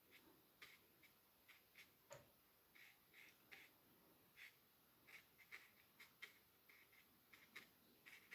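Near silence, with faint, irregular short scratches and swishes: a watercolour brush stroking and dabbing on paper.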